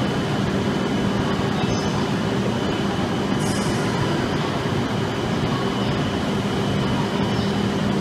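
A train running on the tracks: a steady, unchanging running noise with a low steady hum, plus a few faint ticks.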